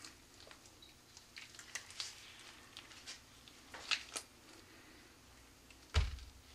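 Light clicks and rubbing of gloved hands handling a greased rocket motor tube, then one dull thump about six seconds in as the tube is stood upright on a table.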